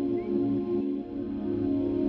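Background music: a slow ambient instrumental with held, overlapping notes.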